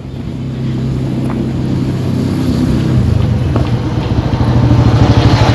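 A motor vehicle engine running steadily, growing gradually louder as it nears.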